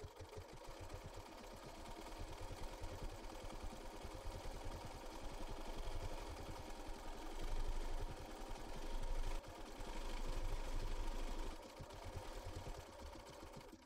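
BERNINA B475 sewing machine stitching a dense satin-fill decorative stitch, its motor running steadily with rapid needle clatter, louder in the middle and easing off near the end.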